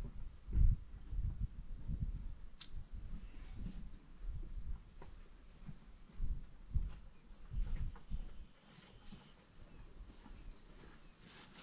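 Crickets chirping steadily in the background, with scattered dull low thumps and a few faint clicks.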